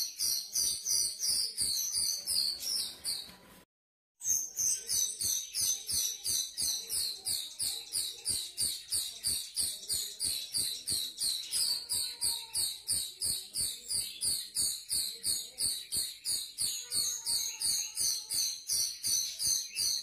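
Grosbeak starling (rio-rio) calls: sharp, high chirps repeated about three times a second. About four seconds in the chirping breaks off into a brief silence, then resumes at the same pace.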